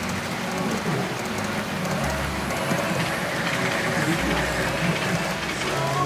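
HO-scale model trains, a Roco ÖBB Railjet and a Liliput WESTbahn KISS, running past at speed, their wheels rolling steadily along the track.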